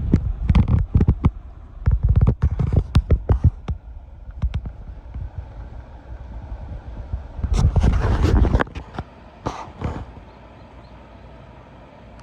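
Irregular knocks and rustling scrapes close to the microphone: a quick run of sharp taps in the first few seconds, a longer scraping rustle about halfway through, then a low rumble.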